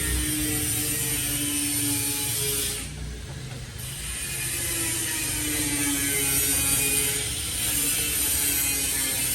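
A steady, rapid mechanical rattling, dipping briefly about three seconds in before carrying on.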